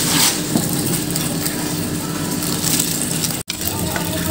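Dry breadcrumbs crunching and rustling as a tofu croquette is rolled and pressed in them, with steady grainy noise throughout; the sound drops out for an instant about three and a half seconds in.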